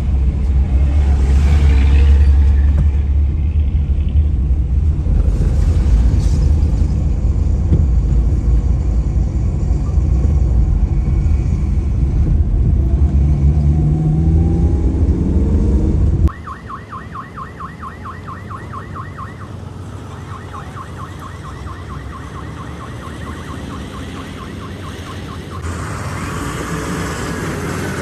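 Truck engine running with a heavy low rumble, its pitch rising briefly near the middle. About sixteen seconds in it cuts off suddenly, and a much quieter, rapid high chirping of about a dozen pulses a second follows in two runs.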